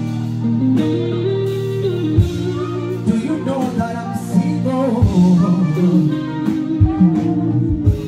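Male singer performing live into a handheld microphone over amplified backing music of long held chords, heard through a stage PA.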